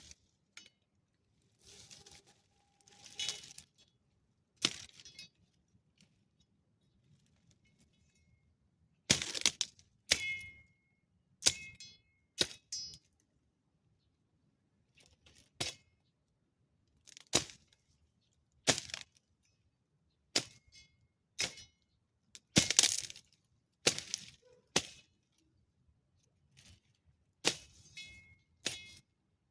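Garden shears snipping, a run of sharp separate snaps at uneven gaps, some with a brief metallic ring from the blades.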